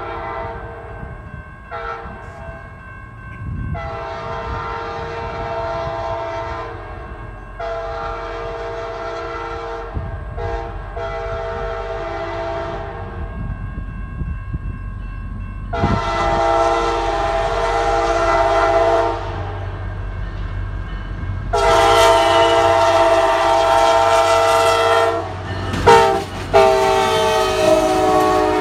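Diesel locomotive's multi-chime air horn sounding a series of blasts, several steady tones at once, over the low rumble of the approaching train. The last four blasts go long, long, short, long, the grade-crossing signal, and the train is passing near the end.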